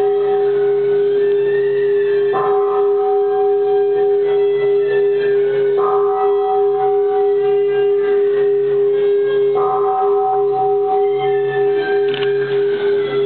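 Ceremonial temple music: one steady note is held underneath throughout, while long sustained notes enter about every three to four seconds and hold for a few seconds each.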